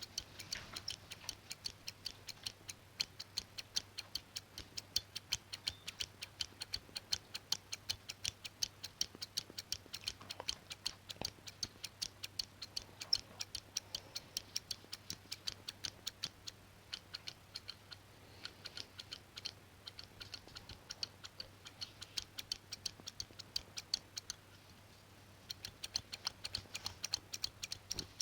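Scissors snipping in a quick, even run of crisp clicks, about five a second, with a brief pause near the end.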